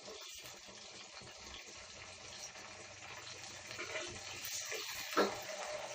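Chopped tomato, curry leaves and shallots sizzling steadily in hot oil in a pan on a low flame, with one short knock about five seconds in.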